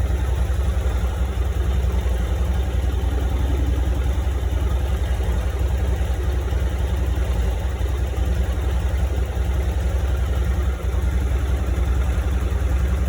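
Yamaha XTZ 250's single-cylinder four-stroke engine, fitted with a KMP cylinder kit, idling steadily.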